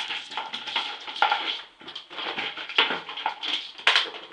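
A dog making close-up sounds: a string of irregular short, noisy bursts.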